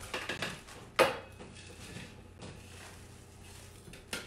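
Dry breadcrumbs being tipped from a food-processor bowl into a plastic bread bag, with one sharp knock about a second in followed by faint rustling of crumbs and plastic.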